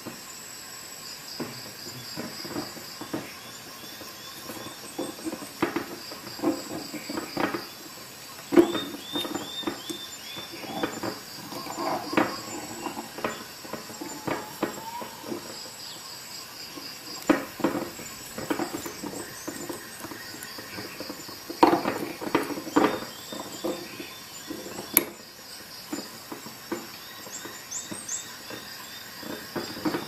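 Leatherman Juice multitool corkscrew being twisted into a wine cork and levered against the bottle neck: irregular metal-on-glass clicks and knocks with short runs of squeaks from the cork. A steady high-pitched whine runs underneath.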